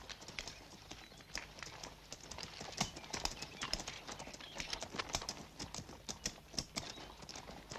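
Hooves of several walking horses clip-clopping on a dirt path, an uneven patter of overlapping hoofbeats.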